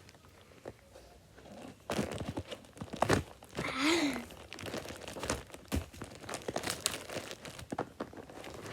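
Plastic packaging crinkling and tearing, with scattered clicks and knocks of handling, loudest in the middle stretch.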